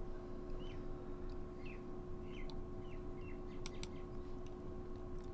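Quiet room tone with a steady electrical hum, a few faint short chirps scattered through it, and a couple of sharp computer-mouse clicks a little over three and a half seconds in.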